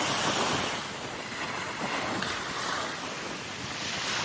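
Wind-driven Chesapeake Bay waves washing onto the shore, the surf swelling and easing about every two seconds, with wind blowing.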